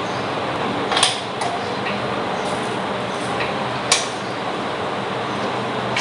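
Sharp metal clinks of a hand tool on the nuts of a brush cutter's metal blade-guard clamp as they are loosened, one about a second in and another near four seconds, over a steady background hiss.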